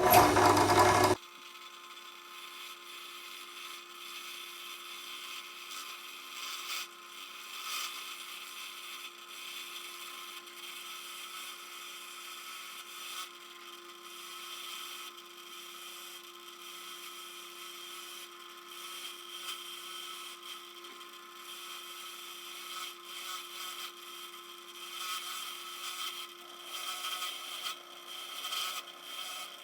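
Steady scraping and rubbing against the aluminium-alloy wrench over a small tool's held hum, swelling and easing as the work goes on, after a short loud whoosh in the first second.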